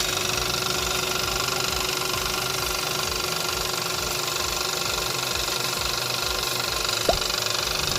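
Hyundai HB20/Creta TGDI turbo direct-injection petrol engine idling steadily, with the noise of its high-pressure fuel pump, a pump that is faulty and has to be replaced. A brief chirp about seven seconds in.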